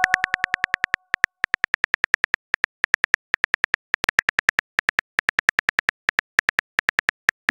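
Synthetic phone-keyboard typing clicks from a texting app as a message is typed, about seven quick taps a second with a few short pauses. A message chime fades out in the first second.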